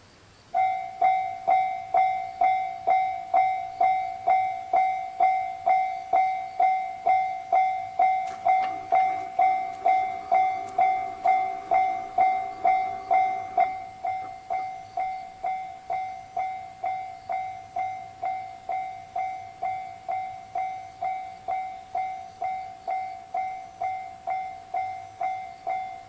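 Japanese level-crossing warning bell starting up and ringing steadily at about two strikes a second as the lights flash and the barriers lower, warning of an approaching train. About halfway through it steps down to a quieter level once the barriers are down.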